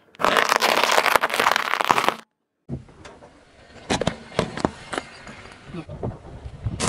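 A car tyre rolling over and crushing things on asphalt. First comes a loud, dense run of crackling crunches for about two seconds as a heap of small chocolate balls is flattened. After a brief break come scattered sharp cracks and crunches as tyres press down on a plastic object and a dried corn cob, with a louder crackling stretch near the end.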